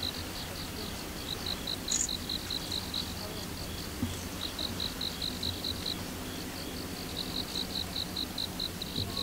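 Crickets chirping in a fast pulsed trill of about six or seven pulses a second, coming in runs of a second or two with short pauses, over a low steady rumble.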